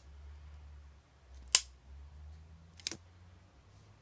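Two sharp plastic clicks from LEGO bricks being handled, about a second and a half apart, the first louder.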